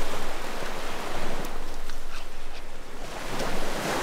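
Small waves washing onto a sandy beach, swelling twice, with a few faint ticks in the middle.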